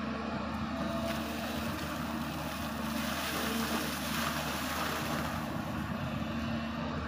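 SANY hydraulic excavator's diesel engine running steadily while the boom lifts and curls a loaded bucket, with a rushing noise that swells about halfway through and eases off near the end.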